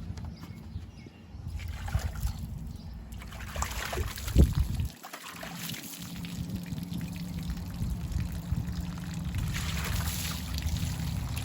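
Water trickling and pouring, over a steady low rumble, with a few knocks; the loudest knock comes about four and a half seconds in.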